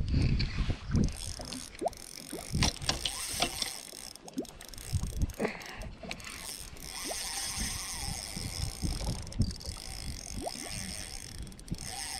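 Spinning reel being cranked while fighting a hooked fish on a bent rod: the reel's gears whir in spurts, with scattered clicks and knocks, and a steadier run of winding near the end.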